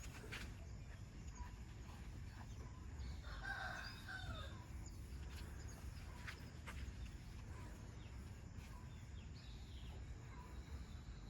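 A faint bird call, one wavering cry lasting about a second and a half, about three seconds in, over a steady low rumble and a few faint clicks.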